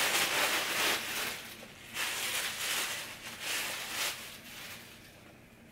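Clear plastic shipping bag crinkling and rustling in several short bursts as a pair of crochet shorts is pulled out of it, fading out near the end.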